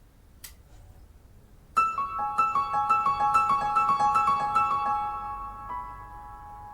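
Solo piano music played back through Yamaha NS-1000MM speakers: a short click, then about two seconds in a quick run of high, repeated notes starts. It then thins to a few held notes that ring on.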